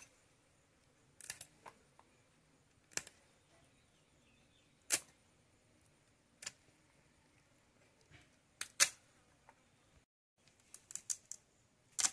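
Short, sharp scrapes and clicks as a carp's scales and fins are cut and scraped against the fixed blade of a boti, one every one to two seconds, with a quick run of them near the end.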